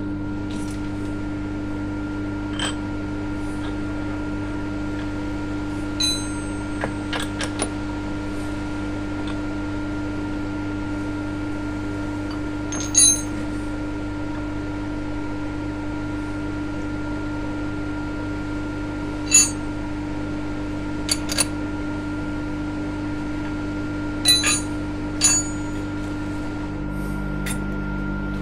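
Steel parts and clamps clinking now and then as they are handled and set up on a milling machine table, some clinks ringing briefly. Under them runs a steady electrical hum from the workshop machinery.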